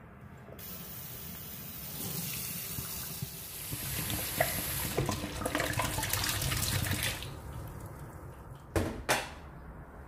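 Tap water running and splashing into a stainless steel sink as a glass bottle is rinsed under it; the water starts about half a second in and stops about seven seconds in. Two sharp knocks close together near the end.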